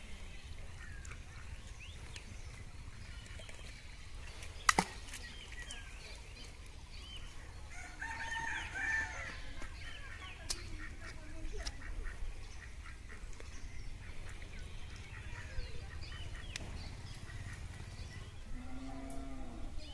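Birds, likely poultry, calling on and off over a low steady rumble, busiest about halfway through. A single sharp click comes about a quarter of the way in.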